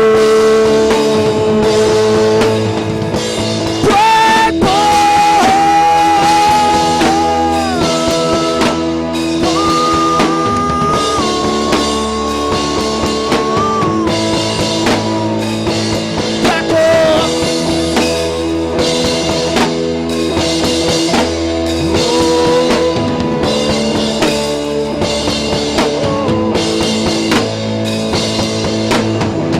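Rock band playing loud and live: electric guitar with sliding, bent lead notes over bass and a drum kit. The music cuts off abruptly at the very end.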